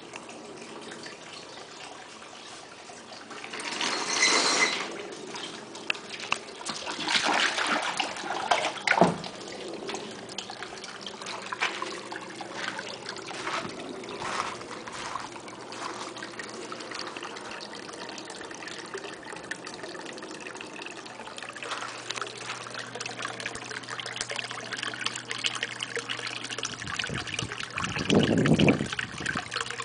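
Water trickling steadily into a stock-tank pond, most likely the return flow of the pond filter. A few louder thumps and rustles come about four seconds in and again between seven and nine seconds in, with a sharp knock near nine seconds. A low steady hum joins about two-thirds of the way through.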